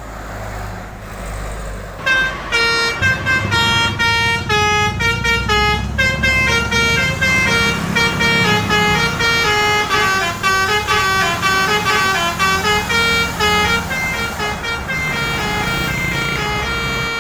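A bus's 'basuri' telolet horn, a multi-trumpet musical horn, playing a fast melody of short stepping notes, several at once, over a low engine rumble; the horn starts about two seconds in and cuts off suddenly at the end.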